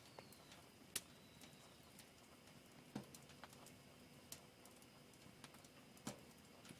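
Faint crackle of a burning wood fire: a few sharp pops and snaps a second or two apart over near silence.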